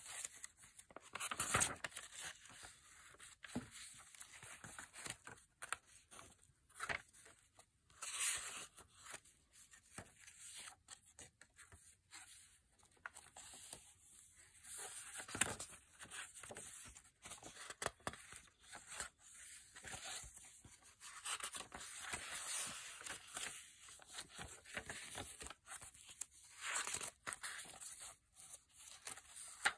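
Paper pages of a junk journal made from an old Reader's Digest book, turned one after another by hand: irregular rustles and swishes of paper, with a sharp click near the end.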